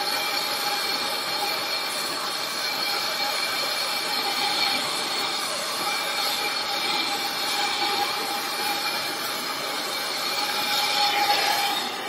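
Handheld gas torch flame burning steadily with a hiss and a few faint steady whistling tones while it heats a steel part for brazing with copper-phosphorus rod. The flame sound cuts off near the end.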